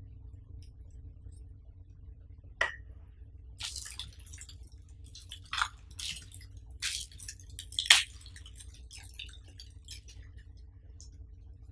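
Clear plastic wrapping crinkling and rustling in short bursts as wrapped TV accessories are handled, with a sharp click about two and a half seconds in and a louder snap about eight seconds in.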